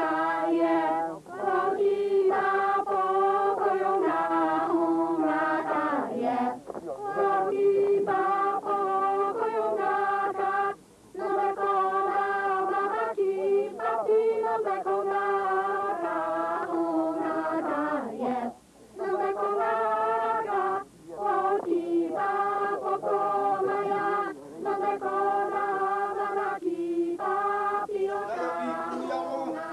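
Several voices chanting together in unison, in long held phrases broken by short pauses.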